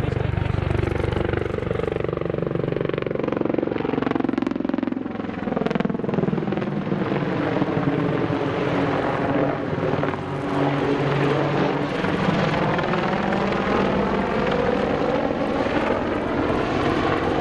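Apache attack helicopter flying low past and overhead: a steady rotor and turbine sound whose tone sweeps and shifts as it passes.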